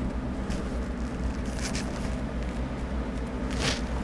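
Thick cardboard game boards being handled and slid over one another, with a few brief scrapes, over a steady low background hum.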